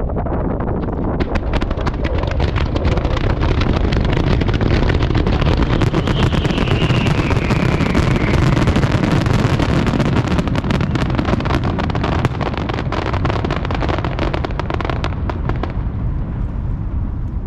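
Fireworks finale barrage (starmine): a dense, continuous run of shell bursts and crackling, with a brief falling whistle about six seconds in. It thins out near the end.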